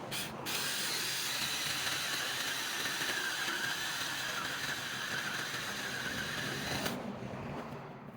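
Cordless handheld mini chainsaw running for about six seconds, with a steady whine over the chain noise, starting about half a second in and stopping near the end.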